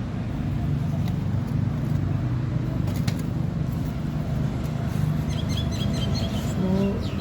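A motor running steadily with a low, even hum, with a few light clicks over it.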